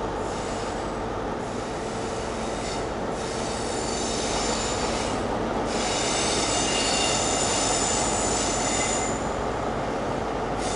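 Train wheels squealing against the rails on curved track, over a steady low rumble. High squeals come and go in several stretches, the longest and loudest from about six to nine seconds in.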